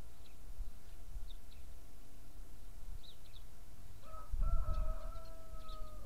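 Small birds chirping in short, high calls, and about four seconds in a rooster crows once: one long held call that drops at the end. A low rumble comes at the same time as the crow.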